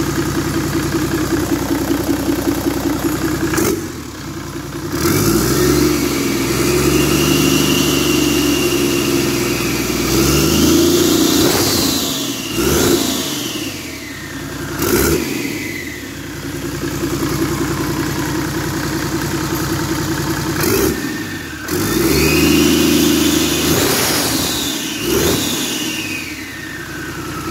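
Toyota Land Cruiser 100's freshly overhauled 1HD-FTE straight-six turbodiesel, in neutral, being revved. It idles, rises about four seconds in and is held at raised revs for several seconds, then is blipped a few times. It is raised and held once more before dropping back toward idle near the end, and a whine rises and falls with the revs.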